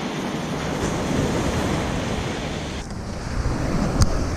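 Ocean surf washing ashore with wind buffeting the microphone, a steady rushing noise with low rumbling gusts. A single sharp click near the end.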